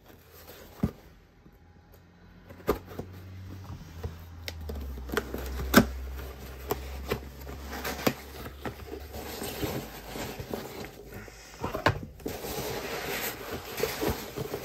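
Unpacking noises: packaging rubbing and scraping, with scattered sharp clicks and taps as items are set down on a mat, and a low rumble through the middle.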